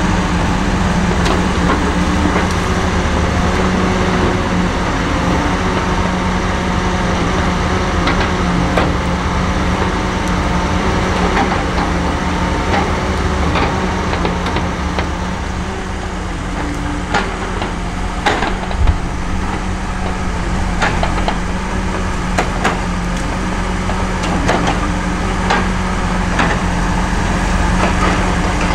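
Tigercat 234B log loader's diesel engine running steadily as it handles a bundle of logs. In the second half come a run of sharp knocks, wood striking wood as the logs are moved.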